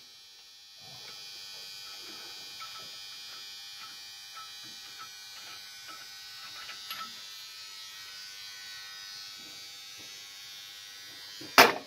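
Milling machine running with a steady high buzz, with faint metallic clinks throughout and one sharp metal clank near the end.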